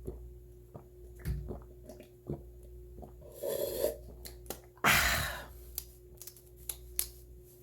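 A person gulping milk, with small wet swallowing clicks, then a loud breathy exhale about five seconds in.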